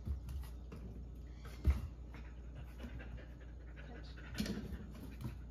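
Dog panting, with a single low thump about a second and a half in and a brief rustle a little before the end.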